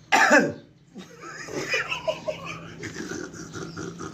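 A person giving one loud, harsh, forced cough with a falling pitch, acted out as an 'angry cough'. It is followed by quieter, broken vocal sounds.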